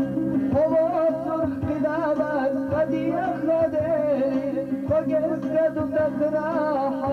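Old Chechen folk song with singing: a wavering, ornamented melody over a steady held drone and a regular low beat.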